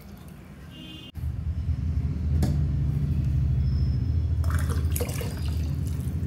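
Water poured from a steel tumbler into a pressure cooker of hot coconut milk, splashing steadily from about a second in as one measured glassful goes in.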